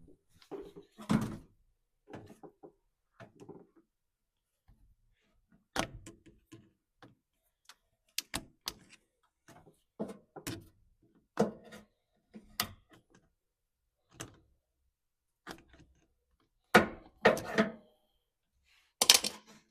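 Irregular sharp clicks, knocks and thunks from hands and tools working on a washing machine's plastic and metal parts during a drain pump replacement, the loudest a cluster of knocks near the end.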